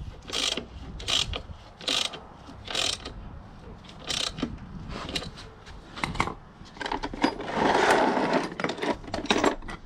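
Ratchet wrench clicking in short bursts, a stroke about every second, as a nut is done up tight; a longer, denser stretch of clicking and rustling comes near the end.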